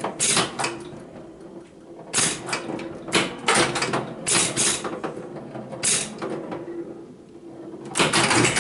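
Gottlieb 1968 Domino electromechanical pinball machine in play: an irregular run of sharp mechanical clacks and bangs from its flippers and playfield solenoids, over a steady low hum.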